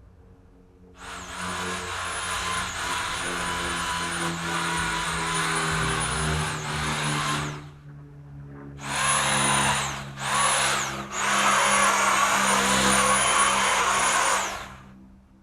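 Chainsaw cutting in bursts: one long cut of about six seconds, then three shorter ones close together. Each time the trigger is released, the high whine drops away.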